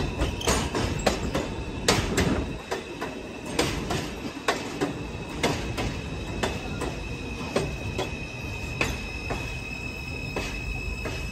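Elevated subway train running along the track, its wheels clicking and clacking irregularly over the rails under a steady high whine.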